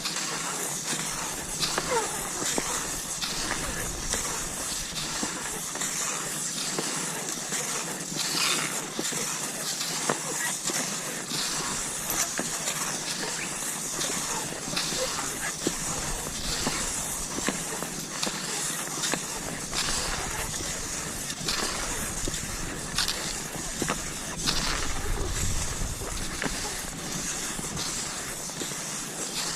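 Cross-country skis sliding over snow: a steady swishing hiss with frequent short, sharp crunches of snow throughout.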